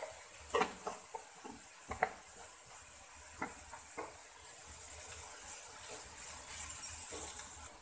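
Spatula stirring in a pan of onions frying in coconut oil. There are several light clicks and scrapes against the pan in the first half, over a steady sizzle.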